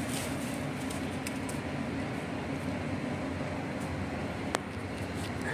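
Steady low background hum with a single sharp click about four and a half seconds in.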